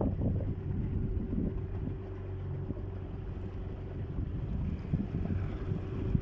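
Small boat's motor running steadily, with wind buffeting the microphone.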